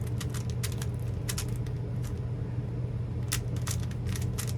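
Plastic clicks and clacks of a Rubik's-style puzzle cube being twisted and handled, irregular, with a run of sharper clicks near the end. A steady low hum runs underneath.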